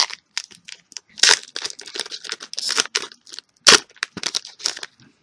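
Crinkling and rustling of a trading card booster pack and its cards being handled up close, a rapid run of short crackles with one louder snap a little past the middle.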